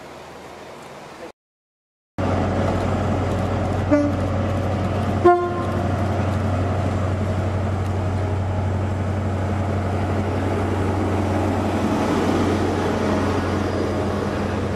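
Class 43 HST power car's diesel engine idling at the platform: a steady low hum that cuts in after a brief drop to silence. About a second and a half apart come two short toots, the second one longer.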